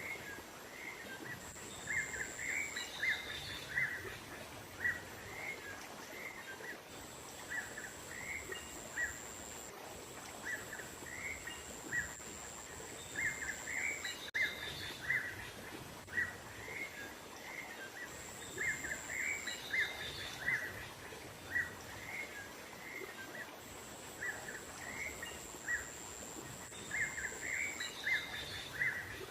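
Small songbirds chirping: quick, short chirps follow one another steadily, with a few higher notes now and then, over a steady outdoor background hiss. A thin, high, steady tone comes and goes several times, each lasting one to three seconds.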